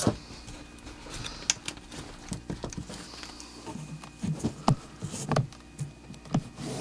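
Scattered clicks and light knocks of a plastic housing and circuit board being handled as the board is worked loose, with a denser run of them about four to five and a half seconds in.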